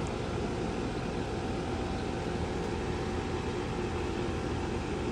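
Heil QuietComfort 2.5-ton central-AC condenser running steadily: its three-blade fan whooshes with wind buffeting the microphone, over the steady hum of its Copeland reciprocating compressor.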